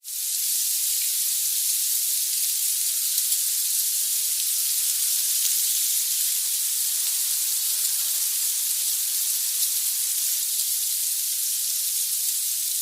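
A steady, high hiss with nothing in the low end, dotted with a few faint ticks.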